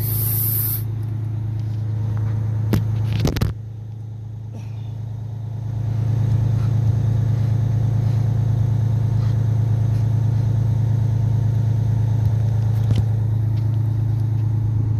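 Vehicle engine idling with a steady low hum. A burst of air hiss cuts off about a second in, a few sharp clicks come around three seconds in, and the hum grows louder from about six seconds in.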